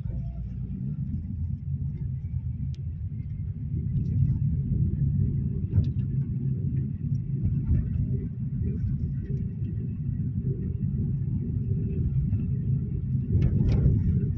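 Steady low rumble of a car driving, heard from inside the cabin: engine and tyre noise on the road, with a brief louder rush near the end.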